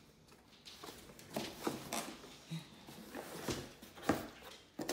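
Cardboard mailer box being opened by hand: a series of scrapes, taps and knocks as the lid is worked loose and flipped open. The sharpest knock comes about four seconds in.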